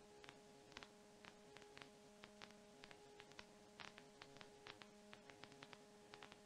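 Near silence: a faint steady hum with scattered faint clicks.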